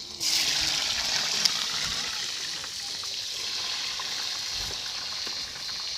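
Water running, starting abruptly and continuing as a steady rushing hiss.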